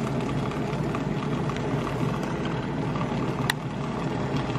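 Nespresso milk frother running steadily while it heats and whisks milk, with a single sharp click about three and a half seconds in.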